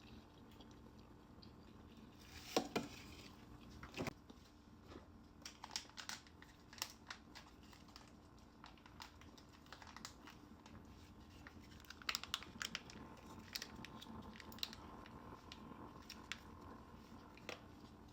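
Crispy fried chicken being bitten, torn and chewed close to the microphone: scattered faint crunches, crackles and mouth clicks, with the loudest bites about three and four seconds in and a cluster later on.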